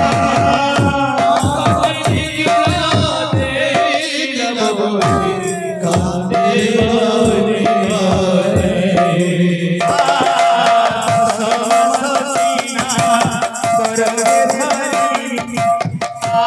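Kirtan music: a mridanga (double-headed barrel drum) played in quick hand strokes over a steady held tone. In the middle the drumming thins while a man sings long, gliding notes through a microphone, then the drum comes back in.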